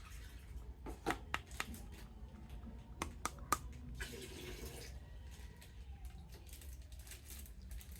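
Scattered light clicks and rustles of a plastic action figure and its packaging being handled, over a faint low hum. The clicks bunch together about a second in and again about three seconds in.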